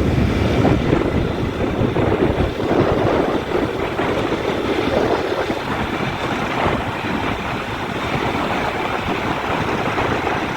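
Road traffic passing with wind rushing on the microphone, a little louder in the first few seconds and then easing.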